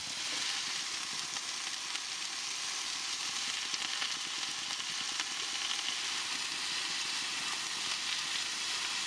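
Chicken, cabbage, asparagus and mushrooms sizzling on a hot teppanyaki griddle plate: a steady frying hiss with fine crackles.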